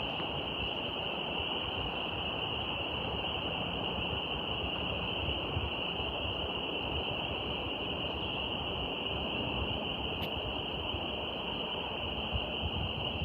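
Steady outdoor nature ambience: a constant rushing noise with an unbroken high-pitched drone over it, and a single faint click about ten seconds in.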